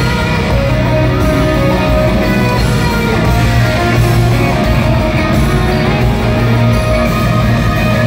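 Live rock band playing loudly in an arena, an electric guitar to the fore, with no singing.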